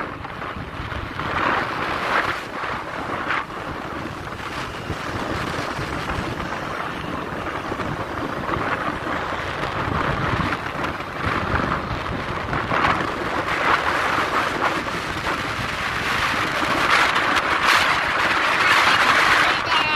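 Wind rushing and buffeting the microphone of a moving motorbike, with the bike's road and engine noise underneath; the rush swells louder near the end.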